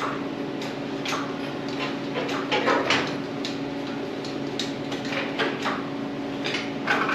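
Irregular metal clanks, clicks and rattles as a heavy part is hoisted up off the Jeep, over a steady hum.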